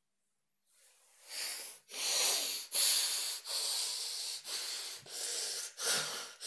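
A man breathing hard and fast, a steady run of loud in-and-out breaths starting about a second in, the agitated breathing of someone working himself up into anger.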